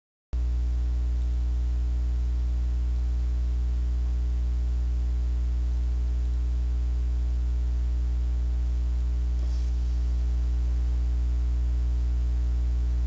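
Steady electrical mains hum: one low tone with a stack of evenly spaced overtones, starting abruptly a moment in and holding level.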